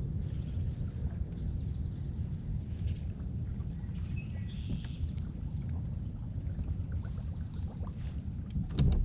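Fishing kayak on a lake: a steady low rumble of the boat on the water, faint short chirps repeating high up, and one sharp knock near the end.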